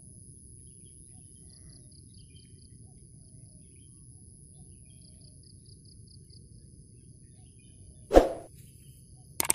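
Field ambience: a low steady rumble with a thin, steady high insect whine and two short trains of rapid cricket-like chirps. About eight seconds in a single loud whoosh cuts across, followed by a couple of quick clicks near the end.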